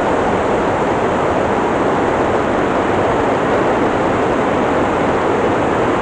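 Steady, loud rush of a waterfall, an even wash of falling water with no breaks.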